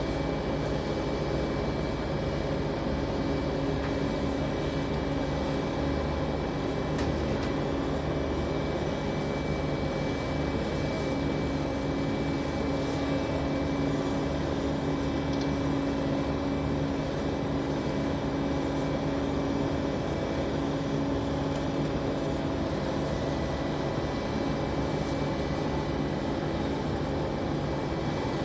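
Lattice-boom crane's diesel engine running steadily: a constant drone with a few unchanging hum tones and a faint high whine above it.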